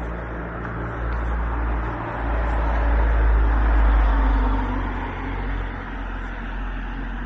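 A car drives past on the road, its engine and tyre noise swelling to a peak about three to four seconds in, then fading as it pulls away.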